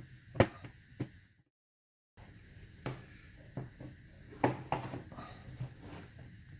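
Sharp plastic clicks and taps from a plastic pry pick working the bottom cover off an ASUS K501 laptop, the case clips snapping loose. The sound drops out completely for under a second after about a second and a half.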